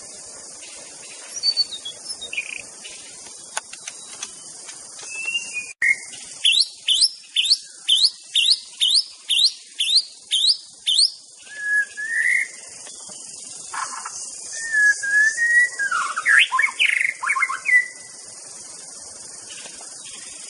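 White-rumped shama singing: a run of about ten quick rising whistles, roughly two a second, followed by varied warbling phrases, over a steady high hiss.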